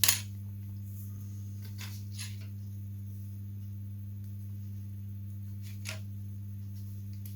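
A steady low hum, with a few faint clicks and taps from small balsa parts being handled and placed.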